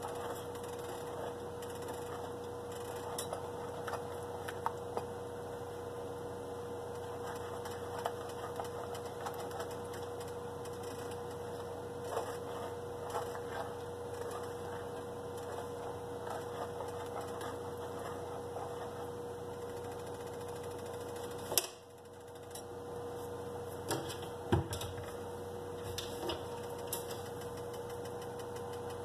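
Spoon stirring butter sauce in a stainless steel pot, with scattered light clicks and scrapes against the pot over a steady hum.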